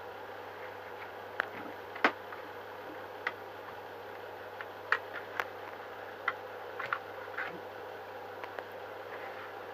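Irregular light clicks and taps of small plastic parts and tools being handled, over a steady low background hum.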